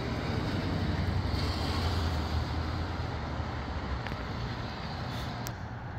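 Gusty wind, heard mostly as a low rumble of wind buffeting the microphone, strongest in the first few seconds and then easing a little. A brief high squeak near the end.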